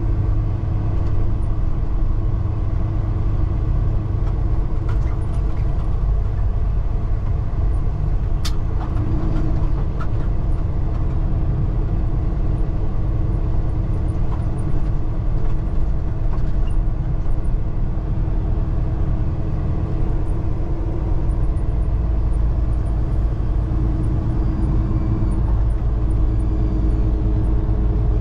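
Semi-truck's engine and road noise while driving, a steady drone with a single sharp click about eight and a half seconds in.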